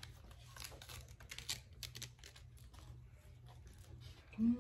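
Faint, irregular crisp clicks and crunches of eating: lettuce leaves torn apart by hand and raw vegetables being chewed. Near the end a short hummed "mm" from a voice.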